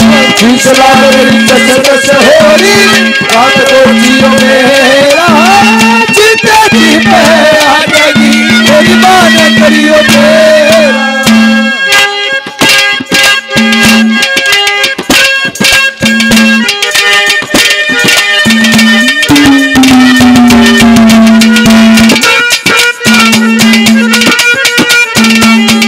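Haryanvi ragni folk music played without singing: a wavering melody over a steady held drone, with hand drums. About twelve seconds in the melody drops back and sharp drum strokes come to the fore over sustained tones.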